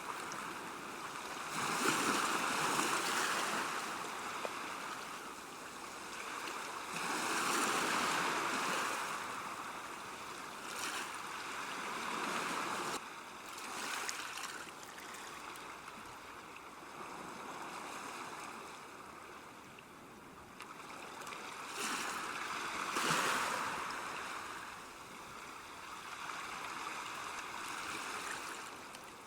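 River water rushing and lapping at a bank: a steady splashing wash that swells and eases, with louder surges about two, eight, twelve and twenty-three seconds in.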